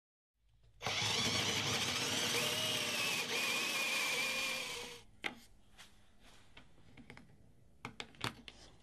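A power drill runs a 35 mm Wolfcraft Forstner bit, boring into softwood with a steady, high-pitched whine for about four seconds. It then stops suddenly, and a few light clicks and taps of wood being handled follow.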